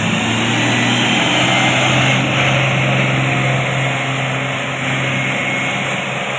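A large bus's engine running steadily, with tyre and road noise, as it passes close by. It is loudest about two seconds in and fades near the end.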